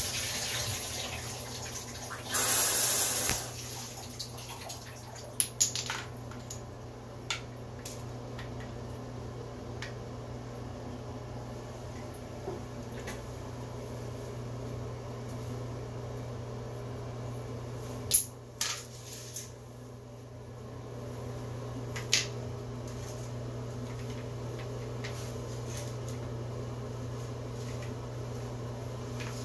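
Scattered sharp clicks and knocks of wooden alphabet puzzle pieces being set into the board and against the tile floor, one or two at a time with long gaps, over a steady low hum. A short rush of noise comes about two and a half seconds in.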